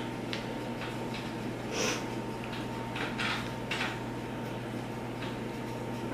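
Hands rolling chocolate chip cookie dough into a ball between the palms: a few faint, soft rubbing sounds over a steady low hum.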